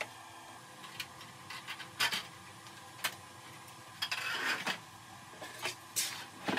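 Light taps, clicks and rubbing of 3D-printed plastic airplane parts being handled on a workbench cutting mat, with a longer rubbing stretch about four seconds in.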